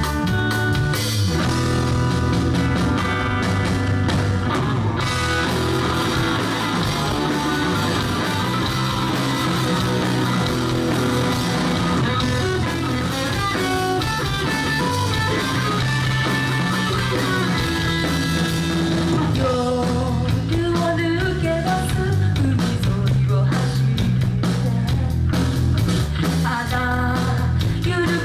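A rock band playing live: electric guitar over bass and drum kit.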